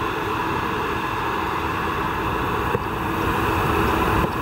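Small fan heater running inside the tent: a steady whirring hiss with a faint steady hum under it.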